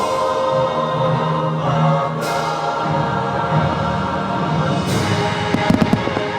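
Patriotic show soundtrack with a choir singing sustained notes over the park speakers, with firework bursts going off: one about two seconds in, another near five seconds, and a quick cluster of bangs and crackles near the end.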